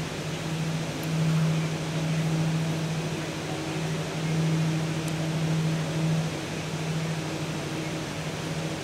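A steady low mechanical hum, like a ventilation fan, that swells and fades every couple of seconds.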